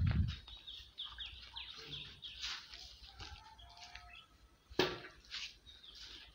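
Small birds chirping in a quick run of short, falling notes, with a few short whistled notes after, and one short loud noise about five seconds in.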